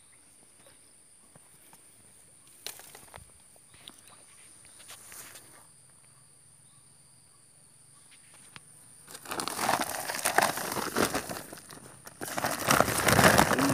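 Faint steady high-pitched insect whine with a few soft clicks, then from about nine seconds in loud, close crinkling and rustling of a plastic bag being handled against the phone's microphone.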